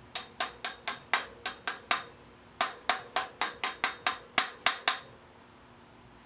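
A small hammer taps a crank bearing cup (race) into a steel bicycle frame's bottom bracket shell, seating the cup. The taps are sharp and ringing, about four a second, in two runs with a short pause about two seconds in, and they stop about five seconds in.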